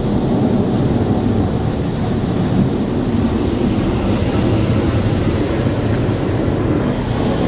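High-pressure water jets of a Karcher Opti Wash 8000 in-bay automatic car wash blasting against the car, heard from inside the cabin as a loud, steady rushing spray.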